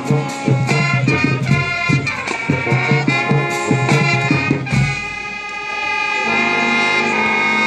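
Live band music with brass-like held chords over a driving, regular percussion beat. About five seconds in the beat drops out, and a sustained chord follows near the end.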